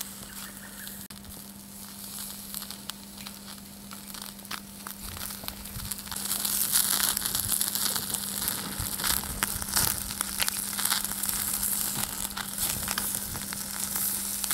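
Raw aigamo duck slices sizzling and crackling on a wire grill over molded charcoal briquettes. The sizzle grows louder about six seconds in as the meat heats on the grate.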